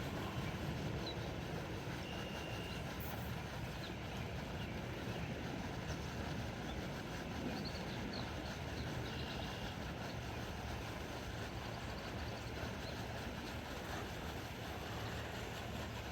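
Steady outdoor background noise, a low rumble with hiss, with two short faint high chirps about two seconds and nine seconds in.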